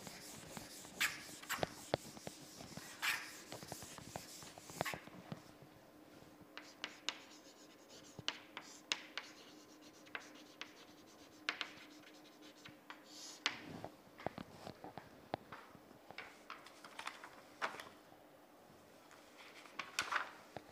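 Chalk writing on a chalkboard: scratchy strokes and sharp taps of the chalk on the board, coming in irregular bunches.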